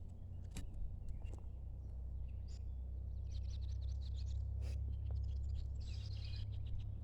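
Birds chirping over a faint, steady low hum, with a few light clicks.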